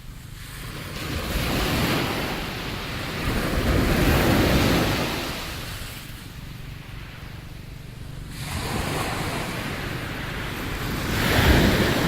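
Small sea waves breaking gently on a beach and washing up the shore, in slow surges that swell and fade every few seconds. The loudest surges come about a third of the way in and again near the end.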